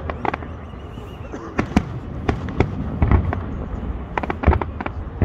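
Aerial fireworks bursting: an irregular string of sharp bangs and pops over a steady low rumble.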